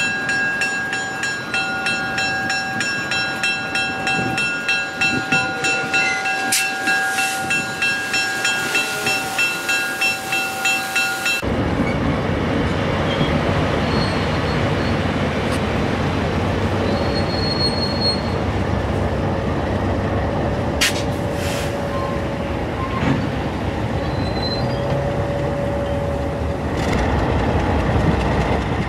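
A train on the rails. For about the first eleven seconds there is a ringing made of several steady tones, pulsing about twice a second. It then changes abruptly to the steady rumble and clatter of the cars and wheels on the track, with a few short wheel squeals.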